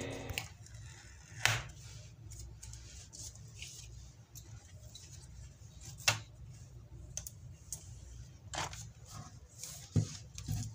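A few sharp clicks and taps of hands and tools working on a computer LCD panel's metal frame and wiring, with a low steady hum underneath.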